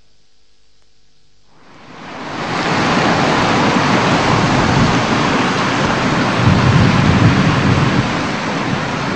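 Steady, loud rushing noise with no tone or rhythm, rising out of near-quiet about two seconds in and holding even.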